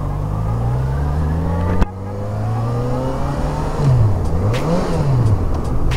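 Motorcycle engine pulling away under acceleration, its pitch climbing. A sharp click and a drop in pitch about two seconds in mark an upshift, and the engine climbs again. Past the middle its note dips and rises again.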